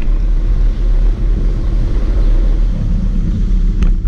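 Steady low rumble of wind buffeting and road vibration on a bicycle-mounted camera while riding, with a brief click near the end.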